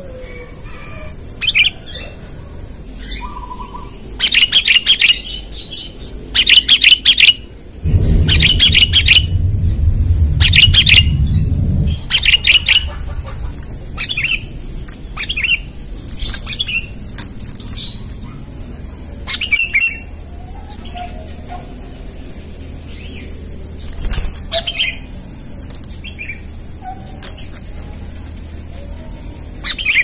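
Sooty-headed bulbul giving sharp, rapid chirping calls in short clustered bursts, the calls a kutilang uses to challenge a rival. The bursts come thickest in the first half and thin to scattered single chirps later. A loud low rushing noise runs for about four seconds near the middle.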